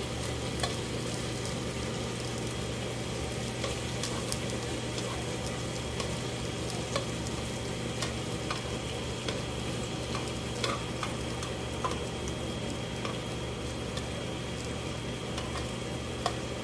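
Beef cubes and sliced red bell peppers sizzling steadily in oil in a nonstick frying pan over low heat. Scattered small pops and clicks come through while metal tongs turn the pieces.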